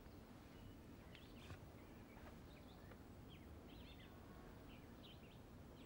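Faint birdsong: short, scattered chirps of small birds over quiet room tone.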